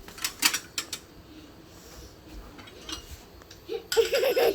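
Kitchen utensils clinking against dishes, three sharp clinks within the first second. Near the end comes a louder burst with a wavering pitch.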